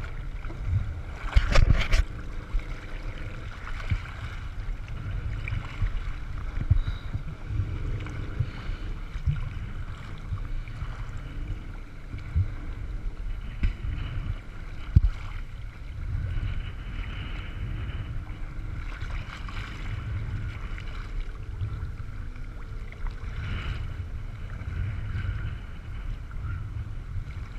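Choppy sea water sloshing and splashing around a camera held at the surface, with wind on the microphone and irregular knocks, the loudest cluster about a second and a half in.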